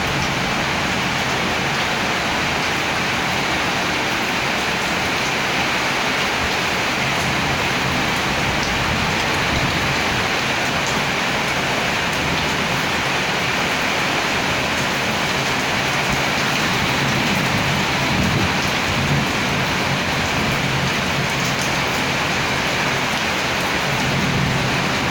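Heavy rain pouring steadily. Low rumbles of thunder come through about two-thirds of the way in and again near the end.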